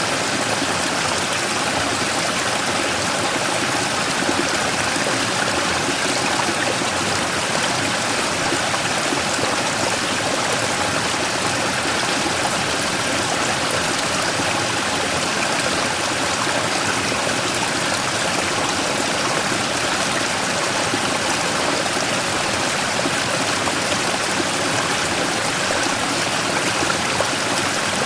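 Mountain stream rushing over and around a large rock, a steady even splashing with no breaks.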